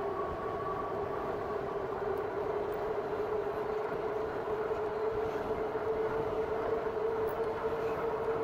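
RadMini electric bike's geared rear hub motor whining steadily under pedal assist, its pitch rising slightly as the bike picks up speed. Wind rumbles on the microphone underneath.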